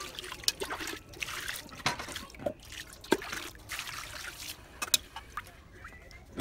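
Water trickling and splashing as it is poured from a metal scoop over a wooden chopping board being rubbed clean by hand, with a few sharp knocks and clicks in between.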